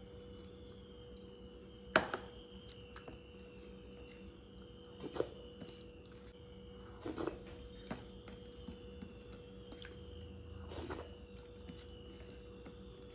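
A hand squishes and mixes rice with mango pulp on a plastic plate. There are soft wet sounds and a few sharp clicks, the loudest about two seconds in, over a faint steady hum.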